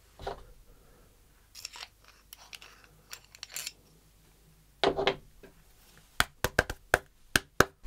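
Small metal tool handling on a tabletop: faint rustles, a knock about five seconds in, then a quick run of about eight sharp clicks near the end as the aluminium bit-holder screwdriver is worked in the hands to free bits stuck in its handle.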